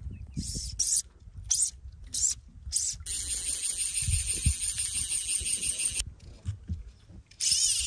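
A fly reel's ratchet buzzing as a hooked trout is played. It comes in several short bursts, then one long buzz of about three seconds, then another short burst near the end.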